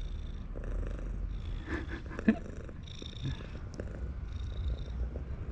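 Tabby cat purring steadily, a continuous low rumble.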